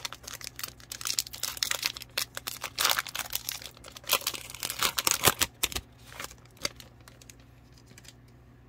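Plastic trading-card pack wrapper being torn open and crinkled: a dense crackling for about six seconds, then a few light clicks of the cards being handled as it tails off.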